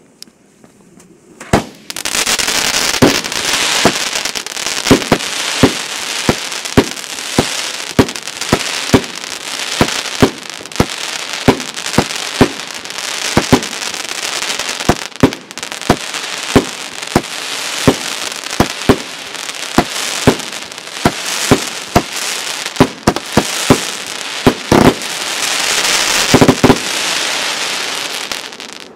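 Consumer firework battery firing a long series of shots into the sky at roughly one and a half a second, over a steady hiss from the burning effects. It starts about two seconds in and stops just before the end.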